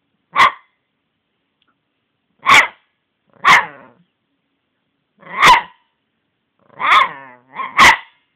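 Pekingese puppy barking: seven short, sharp barks at uneven gaps, the last two close together.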